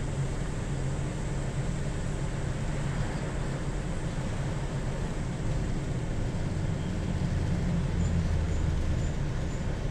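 City bus driving, heard from inside the cabin: a steady low drone of the drivetrain and road noise that grows a little louder about seven seconds in. Near the end a faint quick ticking, about two a second, comes in as the bus nears a turn, like a turn-signal relay.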